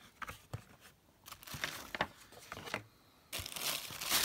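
Cardboard shoebox being handled and opened with a few light knocks and short rustles, then the tissue paper wrapped around the shoes crinkling loudly under a hand near the end.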